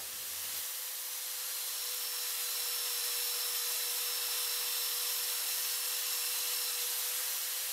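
Makita belt sander running while a steel chisel held in a wooden jig is ground against the sanding belt: a steady, high grinding hiss with a steady hum under it.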